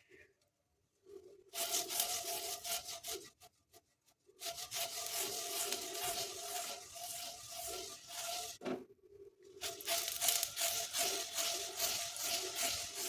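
Onion slice sizzling and scraping as it is rubbed over a hot, oiled cast iron dosa tawa to season it, in three stretches broken by short pauses.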